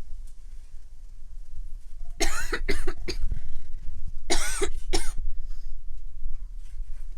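A woman's smoker's cough: two short fits of about three coughs each, the first a couple of seconds in and the second about two seconds later.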